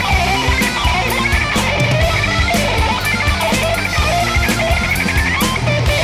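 Background music led by guitar, with a steady beat and a melody line that bends in pitch.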